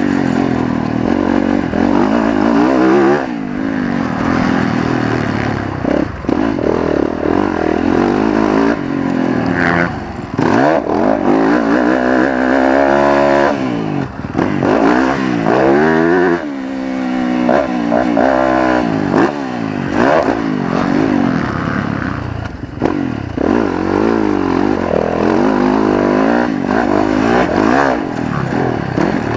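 Motocross bike's engine heard from on the bike, revving up and dropping back again and again as the throttle is opened and shut through the gears, with occasional knocks.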